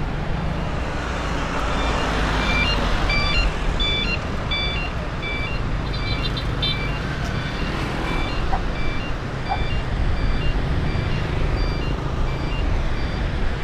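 Motorbike riding noise: steady wind and road rumble with the engine underneath. For several seconds in the middle, a string of short, high electronic beeps at a few different pitches sounds over it.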